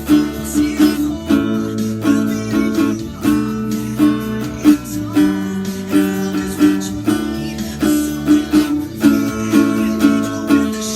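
Acoustic guitar strumming chords in a steady, rhythmic pattern, with no singing.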